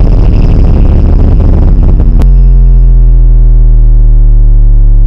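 Bass-heavy electronic DJ music played very loud, cutting abruptly about two seconds in to a single steady, very deep bass note that holds unchanged: a bass sound-check tone for the speakers.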